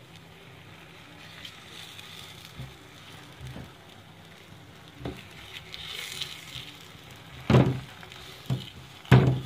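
Radish-stuffed paratha on a hot tawa with a faint hiss of cooking as it is pressed and turned by hand, with a few knocks; the two loudest come in the last two seconds.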